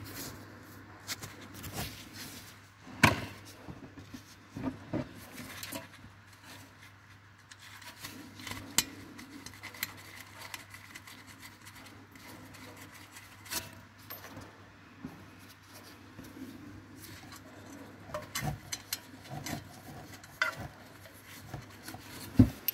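Irregular clicks, knocks and rubbing of gloved hands and a tool against metal suspension parts while a wheel speed sensor and its cable are fitted at the front hub. The sharpest knocks come about three seconds in and just before the end.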